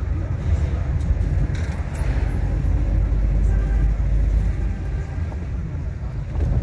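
A car on the move: a steady low rumble of engine and road noise.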